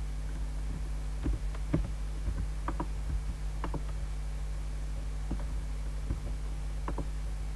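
Computer mouse clicking irregularly, about eight short clicks, over a steady low electrical hum.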